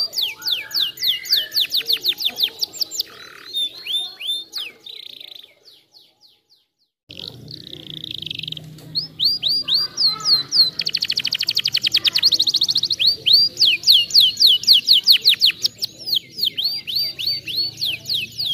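Domestic canary singing: long runs of rapid, falling whistled notes and very fast trills, broken by a short silence about six seconds in.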